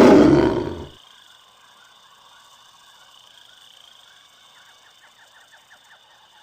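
A tiger roar sound effect dies away about a second in. Then comes a faint outdoor ambience with a steady high hiss, and a quick run of chirps near the end.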